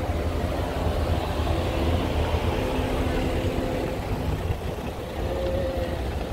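Street traffic: car engines running close by over a steady low rumble.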